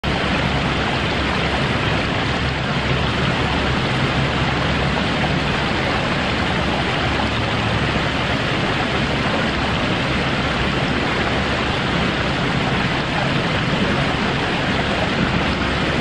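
Fountain water spilling over a curved wall and running through a shallow pebble-lined channel: a steady rush of splashing water, with a low hum underneath.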